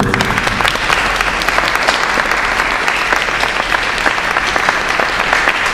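Audience applauding: a steady round of clapping from many hands.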